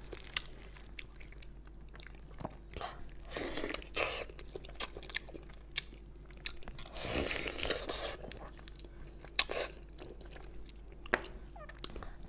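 Close-miked eating: bites into a braised pork hock and chewing, in a few noisy bursts of about a second with sharp clicks of the mouth between.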